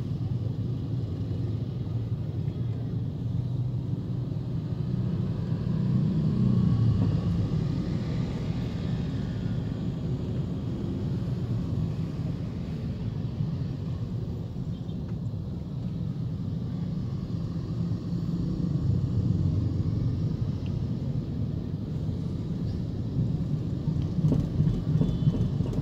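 Motorcycle engine running at low speed in slow, crowded traffic: a steady low rumble that swells twice, with a few short knocks near the end.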